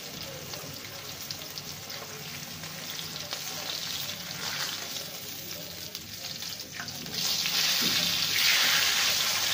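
Chicken piece shallow-frying in hot oil in a wok, sizzling steadily as a metal spatula works it. The sizzle gets much louder about seven seconds in, as the spatula lifts the piece.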